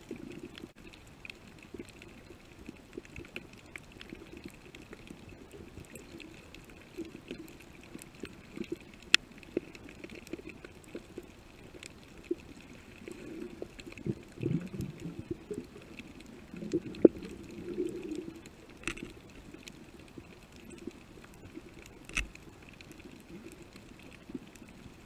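Underwater reef ambience picked up by a submerged camera: a steady low hum and hiss, dotted with scattered sharp clicks. There are two louder, low rumbling stretches in the middle.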